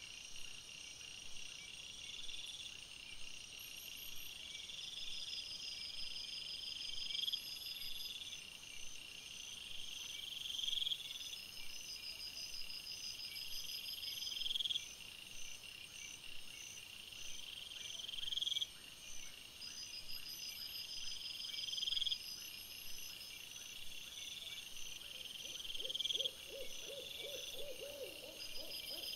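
Nocturnal animal calls in woodland: a rising call, the loudest sound, repeats about every four seconds over steady high-pitched pulsing trills, with a short burst of rapid low pulsing near the end.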